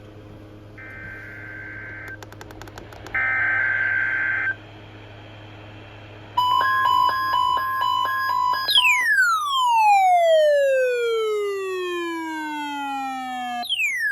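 NOAA Weather Radio required weekly test: three short two-tone digital data bursts (the SAME header), then a loud pulsing alert tone about six seconds in. After it, an electronic siren alarm from a weather radio receiver sweeps slowly down in pitch and starts again near the end, the receiver's alert set off by the test.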